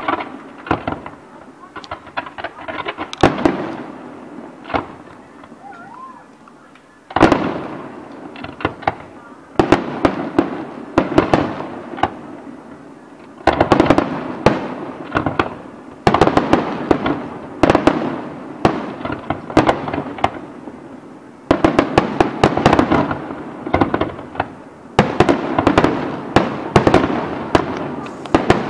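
Fireworks display: aerial shells bursting in rapid volleys, each followed by a rattle of crackling reports, with a loud new volley every two to four seconds.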